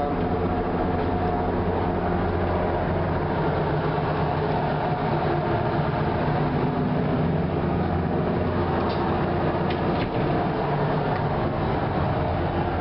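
Boat's engine running with a steady, even drone, heard on board. A few faint clicks come about two-thirds of the way through.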